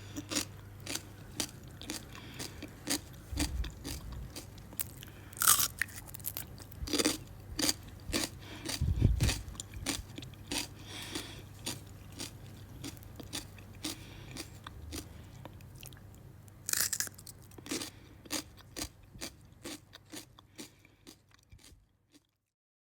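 A person biting into and chewing crunchy fruit: a steady run of crisp crunches, roughly one or two a second, with a few louder bites among them. A low steady hum lies underneath. Both stop about a second before the end.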